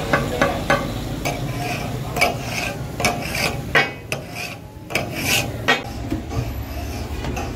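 Metal spatula scraping and tapping on a hot iron tawa as chicken in masala is worked on the griddle. Quick regular strokes, about three a second, stop about a second in, followed by a few scattered scrapes.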